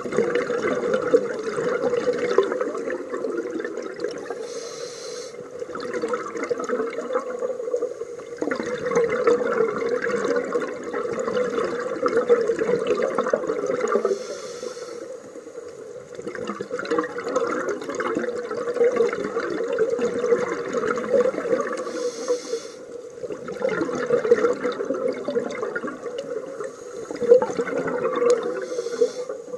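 Scuba regulator breathing heard underwater: long gurgling bubble exhalations alternating with short hissing inhalations, about four breaths.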